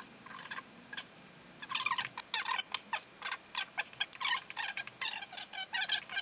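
A man's muttering played back fast-forwarded, so it comes out as rapid, high-pitched squeaky chatter of many short chirps. It is fainter in the first second or so, then dense to the end.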